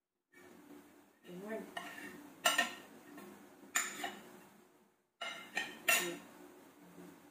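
Kitchen knife cutting food on a plate, the blade knocking and clinking against the plate with four sharp clinks, the last two close together.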